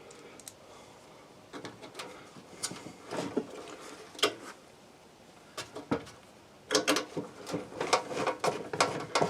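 Sharp clicks, knocks and clatter of metal furnace parts and hand tools being handled, scattered at first and then a busy run of clattering about two-thirds of the way in.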